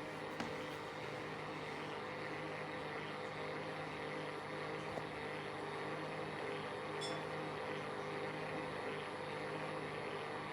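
A small motor or fan running steadily, a constant hum with a few fixed tones, with a small click about half a second in.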